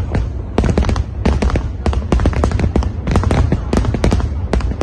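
Aerial fireworks display bursting: many rapid, overlapping bangs, several a second, over a continuous deep rumble.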